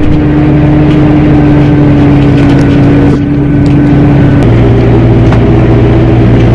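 Combine harvesting corn, heard from inside the cab: a steady engine and machine drone whose pitch shifts about four and a half seconds in.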